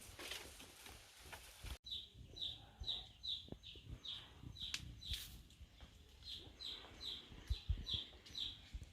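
Shuffling, rustling noise, then from about two seconds in a bird's short high chirps, each slightly falling in pitch, repeated about two to three times a second, with a few soft knocks underneath.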